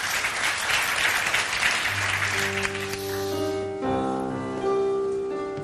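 Studio audience applauding, dying away after about three and a half seconds, while a music cue of long held chords over a low bass note comes in about two seconds in and carries on.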